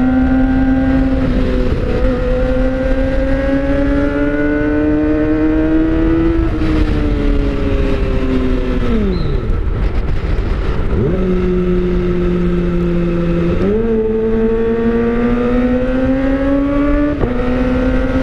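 Kawasaki ZX-25R's 250 cc inline-four running through an Austin Racing slip-on silencer on the move. The engine note climbs slowly in each gear and drops at each upshift, several times over. About halfway through, the pitch falls away sharply and then climbs again.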